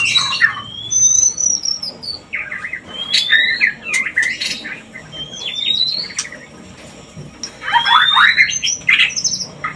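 White-rumped shamas calling: quick rising whistles mixed with harsh, rattling chatter, given in short repeated phrases with a brief lull just past the middle. These are the courtship calls of a pair in breeding condition.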